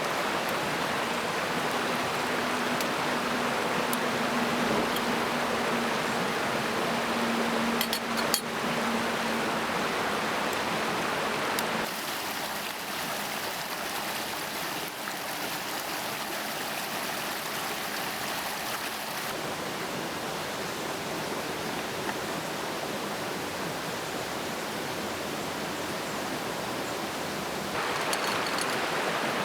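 Steady rushing of a stream. It drops abruptly in level about twelve seconds in and comes back up near the end. A few faint clicks sound about eight seconds in.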